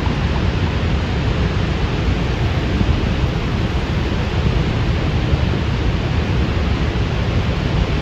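Niagara's Horseshoe Falls: a steady, loud rush of falling water, heaviest in the low end.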